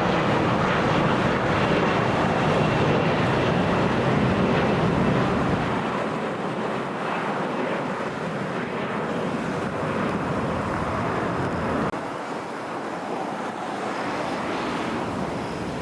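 Jet airliner engine noise, a steady rush that eases somewhat about five seconds in.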